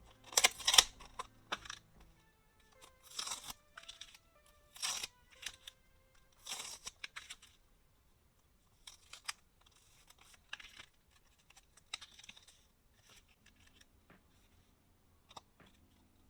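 Mail packaging, paper and tape or plastic, being torn open and handled: a string of short tearing and crinkling sounds, the loudest in the first second, over quiet background music.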